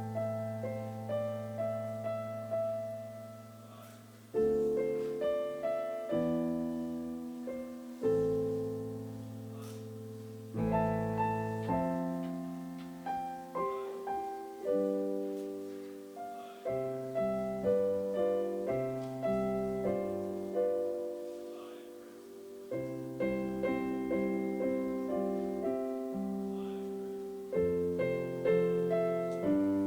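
Piano playing a slow piece of struck chords, each one sounding sharply and then fading before the next.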